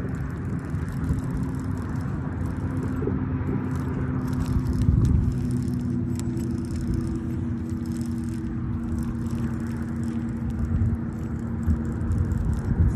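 Wind buffeting the phone's microphone, a dense low rumble, with a steady low hum running underneath and scattered light handling clicks.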